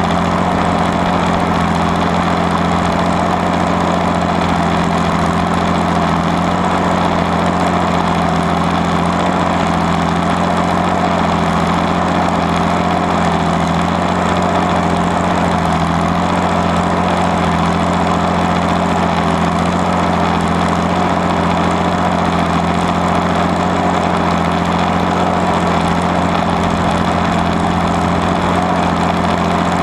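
Allis-Chalmers WD45 tractor's six-cylinder diesel engine running steadily under load as it pulls a plow through the ground.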